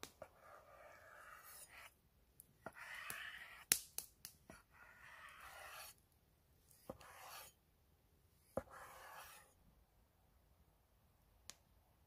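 Cleaver-style knife cutting raw chicken breast on a wooden board: soft slicing and scraping noise in stretches, broken by sharp knocks as the blade hits the board. A single knock comes near the end.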